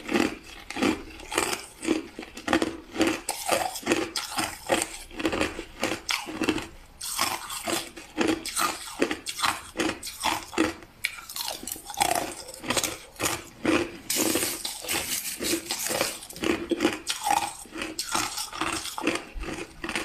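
Close-up crunching of clear crushed ice being chewed: a run of crisp, loud crunches, about two a second, with a couple of denser spells of crackling.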